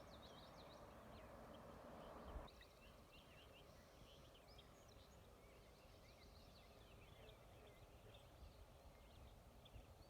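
Faint songbirds singing, with many short chirps and trills over one another. A soft hiss under them stops abruptly about two and a half seconds in, with a dull thump.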